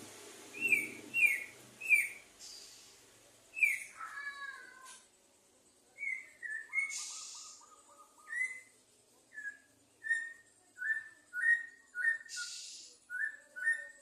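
Male white-rumped shama singing in an excited, fired-up state: a run of short, clear whistled notes, each dropping slightly in pitch, with a few harsh rasping notes and a brief buzzy trill in between.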